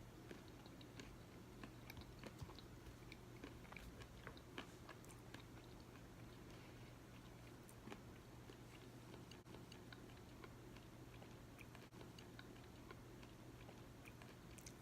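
Near silence, with faint scattered clicks of someone quietly chewing a mouthful of chia seed pudding over a low steady hum.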